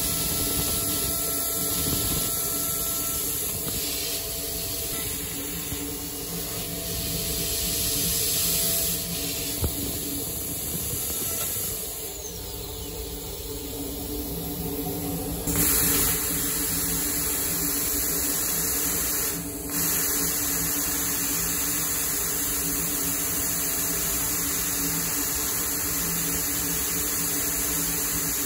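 DATRON CNC milling machine running while it mills a titanium part: a steady hiss over a hum of steady tones. The sound changes abruptly about halfway through, and again a few seconds later.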